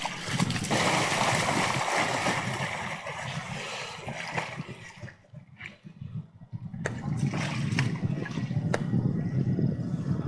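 A dog splashing as it wades off the bank and swims out through the water, the splashing loudest in the first few seconds. In the second half a low rumbling noise takes over, with a couple of sharp clicks.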